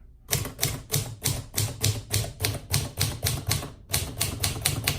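1960s Triumph Perfekt manual typewriter typing a run of figures, its type bars striking the platen at a steady pace of about four keystrokes a second, with one brief pause near the end.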